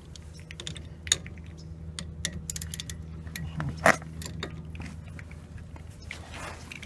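Metal hand tools clinking and rattling as a wrench and socket are handled at the brake caliper, with scattered sharp clicks and one loud clank about four seconds in, over a steady low hum.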